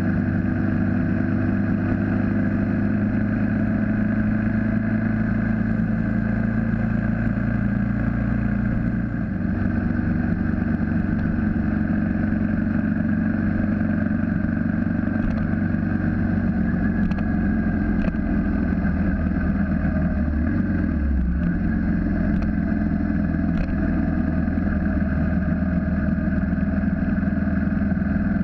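On-board sound of a BMW G 650 GS single-cylinder motorcycle cruising at steady speed, its engine running evenly under wind and road noise. The engine note shifts about nine seconds in.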